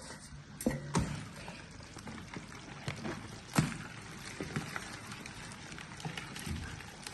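Water trickling and splashing, with scattered small knocks; the sharpest comes about three and a half seconds in.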